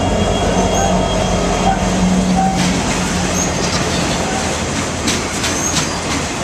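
Freight train passing close by: the trailing Union Pacific diesel locomotive's steady engine drone drops away about two and a half seconds in, leaving the rumble of boxcars rolling over the rails, with a few sharp wheel clacks near the end and brief faint wheel squeals.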